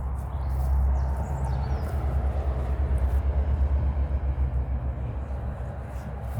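Steady rumble of M4 motorway traffic, a heavy low drone with tyre hiss over it, swelling about a second in and again midway.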